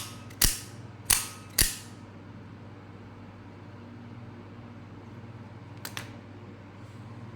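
Spring-driven blade mechanism of an aluminium-handled automatic out-the-front utility knife snapping as the blade fires out and retracts. Three loud sharp snaps come within the first two seconds, then two quieter clicks close together about six seconds in.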